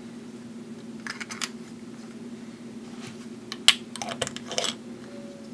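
Small hard clicks of caps being handled: a quick cluster about a second in, then one sharp click and a few rattling clicks as a cap is set and turned down onto a glass ink bottle. A steady low hum runs underneath.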